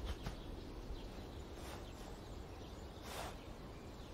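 Quiet outdoor background ambience with faint high chirps, and a soft brief rush of noise about three seconds in.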